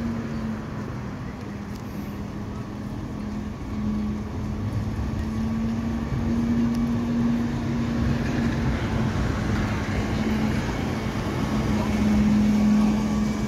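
ZiU-683V01 articulated trolleybus pulling out and driving closer, its running noise growing louder. Under it are a steady low hum and general street traffic.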